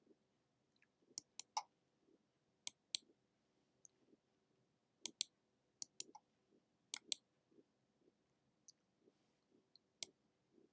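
Computer mouse clicking: about a dozen quiet, sharp clicks, many in quick pairs, at irregular intervals.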